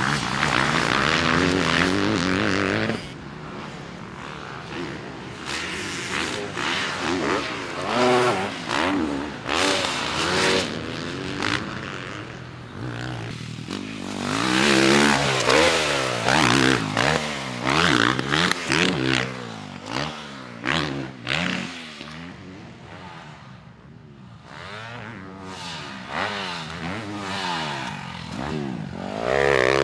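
Motocross dirt bike engines revving up and falling off again and again, the pitch rising and dropping as the bikes go round the track. They are loudest near the start, through the middle and again near the end.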